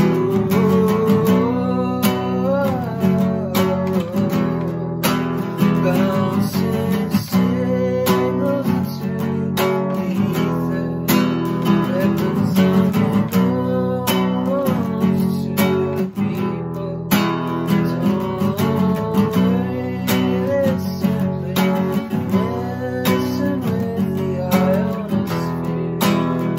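Acoustic guitar with a capo strummed in a steady rhythm, with a man's voice singing softly over the chords.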